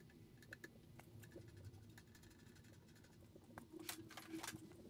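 Near silence: room tone with a few faint scattered clicks and taps, a little busier near the end as tools are handled at a tool chest.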